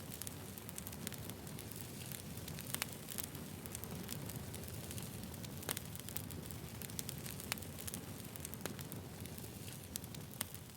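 Wood campfire burning, with a steady low hiss and irregular sharp crackles and pops from the burning wood.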